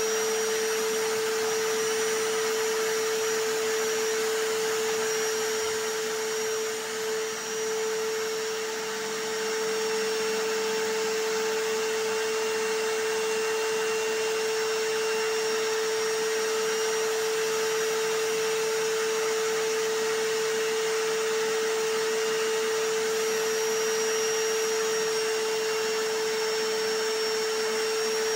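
Vacuum cleaner and hammer drill noise layered together, running steadily as continuous white noise with a strong steady hum. The level dips briefly about seven seconds in.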